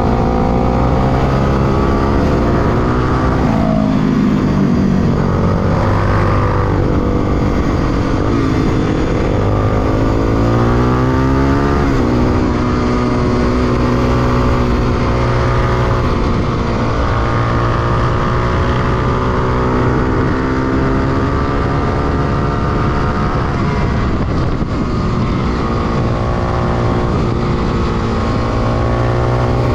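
Honda XR250 Tornado's air-cooled single-cylinder four-stroke engine, heard from a camera on the bike, revving hard and easing off through the gears. Its pitch climbs and drops several times in the first twelve seconds, then holds steadier, with wind rush behind it.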